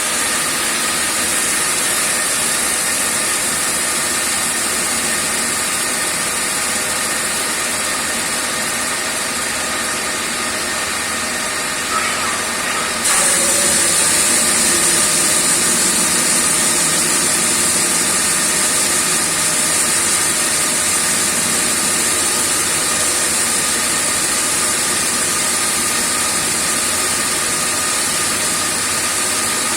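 A grinder running steadily with a continuous whine and hiss. About 13 seconds in, it jumps suddenly to a louder, brighter pitch and holds there.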